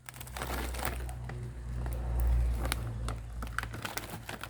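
Crackling and clicking of plastic food packets being handled, over a low rumble that swells about two seconds in and fades out near the end.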